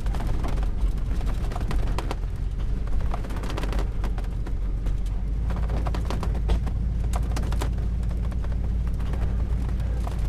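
Class C motorhome engine running low and steady as the rig creeps along at parking speed, with many sharp crackles and pops from the tires rolling over stony desert ground.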